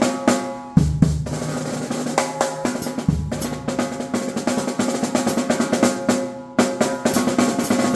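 Drum kit solo: fast snare strokes and rolls with bass-drum kicks. Twice the playing drops off briefly and comes back with a loud accent, once just under a second in and again near the end.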